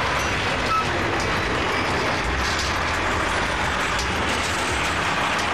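Cargo truck driving past on a road, its engine running and tyres rolling, heard as a steady rushing noise with a low rumble.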